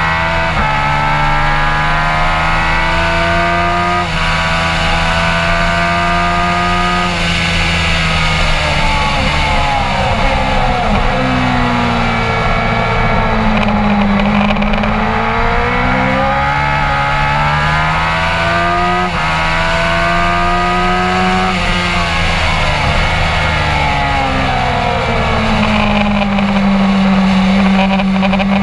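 Engine of a race vehicle heard onboard at speed on a racetrack. The revs climb with sharp drops at the gear changes, fall away into the slow corners, and settle to a steady lower note near the end.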